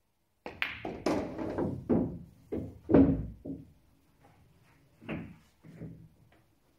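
Pool shot on a Diamond pool table: the cue tip strikes the cue ball about half a second in, then balls click against each other and the cushions. A potted ball drops into a pocket and rolls away, with a string of knocks and the heaviest thunk about three seconds in. A few fainter knocks follow near the end.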